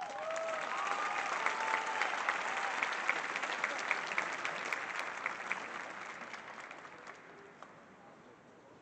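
Crowd applauding and cheering, with a few whoops near the start. The applause swells quickly, holds for several seconds, then dies away over the last few seconds.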